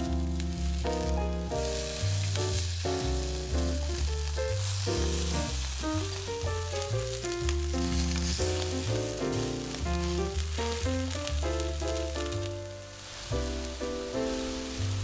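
Tuna and egg patties sizzling as they fry in oil in a pan, over background music with a moving bass line.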